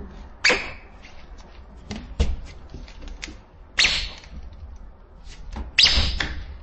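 Homemade 3D-printed air rifle with an electronic solenoid valve firing shot after shot, each a sharp pop of released air with a brief hiss. Three clear shots come roughly one and a half to two seconds apart, with a duller thud about two seconds in.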